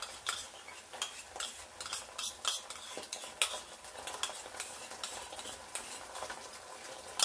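A spoon scrapes and clicks repeatedly as yogurt is scooped out of a tub into a pot. Under it, onions and ginger-garlic paste sizzle steadily in hot oil. The sharpest click comes right at the end.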